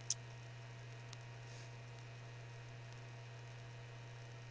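Steady low electrical hum with hiss from a webcam microphone, broken by one sharp click just after the start and a fainter tick about a second in.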